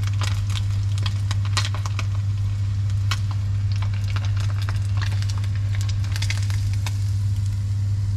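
Tempura-battered fish fillet sizzling and crackling as it deep-fries in hot oil in a wok, with a steady low hum underneath. The crackling thins out near the end as the piece is lifted out of the oil.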